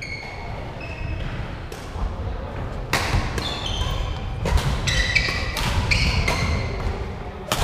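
Badminton rally in a large hall: a string of sharp racket hits on the shuttlecock, starting about three seconds in, with shoes squeaking and feet thudding on the wooden court floor.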